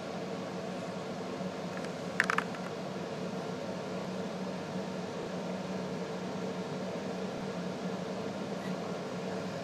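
Steady mechanical hum in a small room, with a quick cluster of a few sharp clicks about two seconds in.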